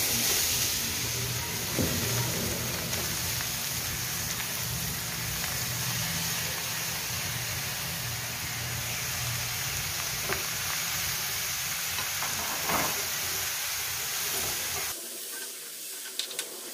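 Grated carrots frying in hot ghee in a non-stick pan, a loud steady sizzle. Near the end it drops abruptly to a quieter sizzle with a few clicks of a spatula stirring in the pan.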